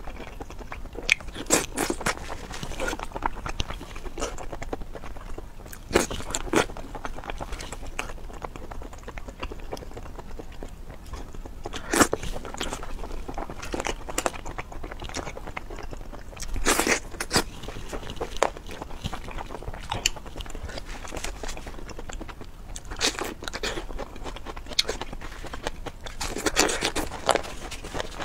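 Close-up eating sounds of a person eating spicy marinated seafood: crunchy bites, wet chewing and crackles, irregular, with louder bursts of crunching about every five or six seconds.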